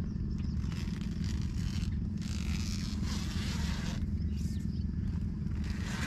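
Steady low rumble of wind buffeting the tent and the microphone. About two seconds in, the tent's fabric and mesh rustle with a scraping sound for under two seconds.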